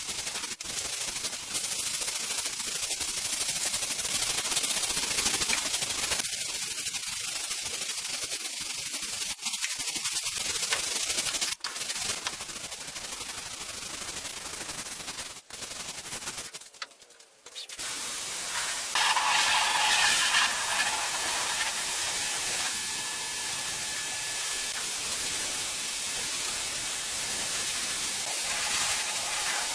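Steady hissing noise, broken several times by sudden short drops.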